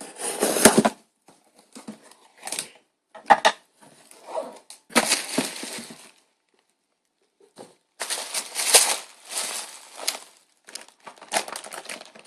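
Scotch tape being ripped and packaging crinkling as a taped-up parcel is torn open, in irregular bursts with a short pause about halfway through.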